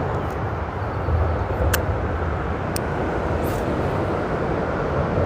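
Steady traffic noise from freeway traffic passing on the bridge overhead: a continuous low rumble and hiss of tyres and engines.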